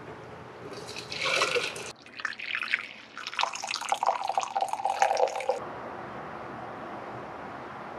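Water pouring and splashing into a container in two goes, a short one and then a longer one that stops abruptly.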